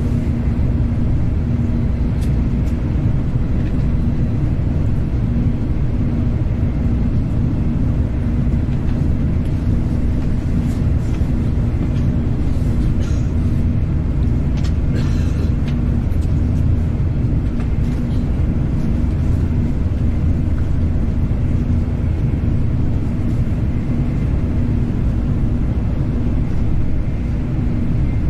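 Steady low rumble of a Shinkansen bullet train running, heard from inside the passenger cabin, with a steady hum under it and a few faint clicks in the middle.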